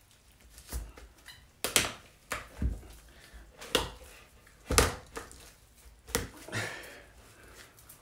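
Raw chicken pressed flat by hand on a wooden chopping board to spatchcock it: an uneven series of about eight sharp cracks and thumps as it gives under the pressure, the loudest about two seconds in and just under five seconds in.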